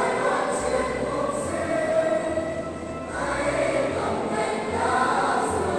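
A choir singing a slow hymn, held notes moving from one to the next.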